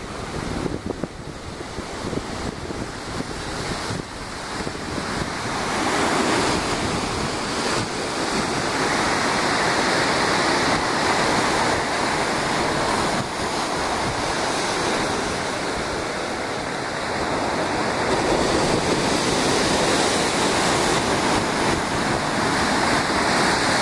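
Ocean surf breaking on rocks and washing up a sandy cove, with wind on the microphone. It is a continuous rushing wash that grows louder about a quarter of the way in and swells again with the larger breakers.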